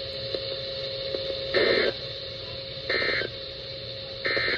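Emergency Alert System end-of-message (EOM) data bursts: three short, raspy digital tone bursts just over a second apart, signalling the end of the severe thunderstorm warning broadcast. A steady hum and radio hiss run underneath.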